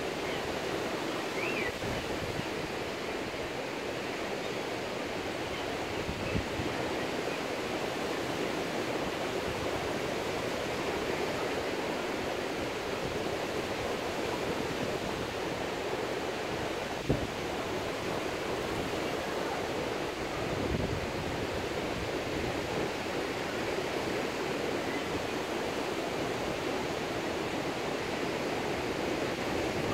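Steady wash of Gulf surf breaking along the beach, heard from high above. A single sharp click a little past halfway.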